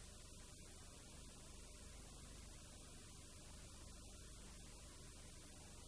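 Near silence: a faint steady mains hum with hiss, the background noise of an old VHS recording.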